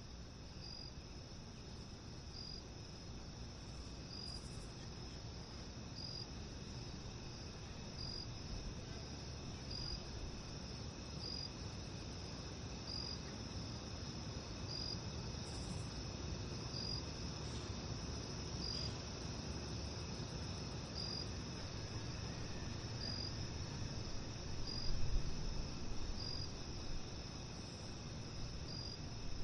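Crickets trilling steadily in a continuous high-pitched chorus, with a brief chirp standing out about every two seconds, over a low background rumble that swells briefly near the end.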